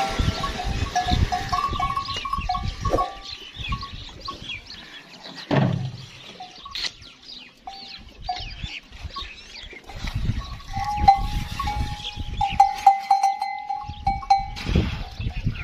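A metal bell on a camel's neck clinks again and again as the herd jostles at the trough, in clusters early and again near the end. Low camel grunts mix in, one longer, lower call about five seconds in.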